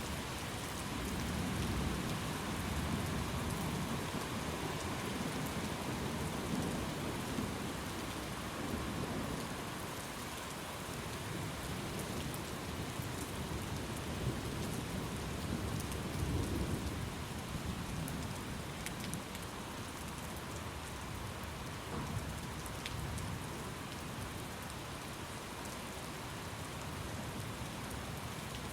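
Steady rain falling, with low rolls of distant thunder swelling and fading several times.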